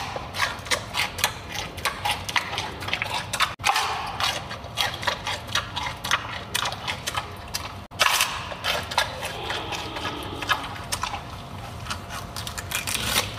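Giant panda chewing a peeled bamboo stalk: a rapid, irregular run of crisp crunches as its teeth break the fibrous pith.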